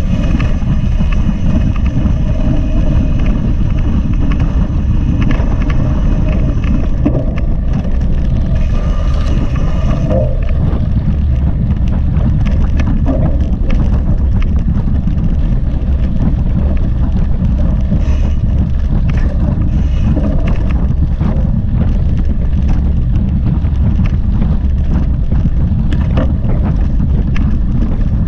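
Loud, steady wind buffeting on the microphone and rumble from a mountain bike being ridden over a trail, with scattered knocks and rattles from bumps.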